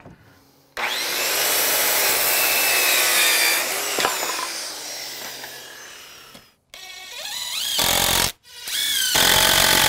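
Power saw cutting through a wooden board, then running down. Near the end a cordless DeWALT impact driver drives a screw into the wood frame in three short runs, each with a rising whine.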